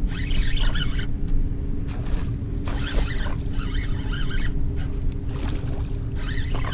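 Water sloshing around a plastic kayak as a hooked redfish is played on a spinning rod, over a steady low rumble, with short scratchy noises now and then.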